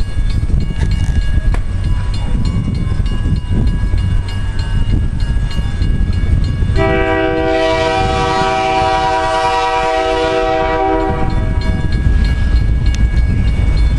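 Lead EMD GP38-2 diesel locomotive of a freight train sounding one long air-horn blast, a chord of several notes lasting about four seconds, starting about seven seconds in. Under it runs the steady low rumble of the approaching train, its two-stroke V16 diesel engines working.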